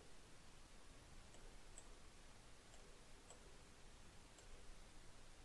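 Faint computer mouse clicks, about five spread over a few seconds, against quiet room hiss.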